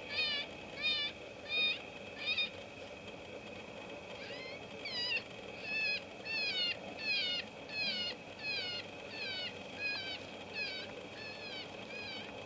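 Electronic predator caller playing an animal distress call as a coyote lure: a squealing, meow-like cry repeated about one and a half times a second, with a break of about a second and a half near the start before the calls resume.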